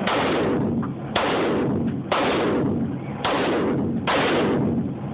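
Five gunshots fired at a steady pace, about one a second, each a sharp crack with a short echoing tail.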